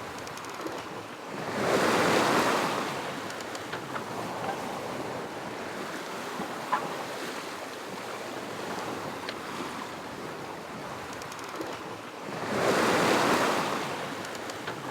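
Sea water rushing along a sailboat's hull, with wind on the microphone. Two louder waves wash past, about two seconds in and again near the end.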